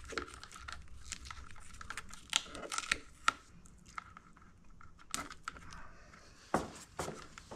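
Plastic wiring connectors and cables being unplugged and pulled free on an electric scooter's frame: scattered sharp clicks and snaps with crinkly rustling of the wiring and plastic.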